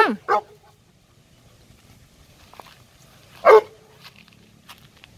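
Dog barking: two barks right at the start and a single bark about three and a half seconds in.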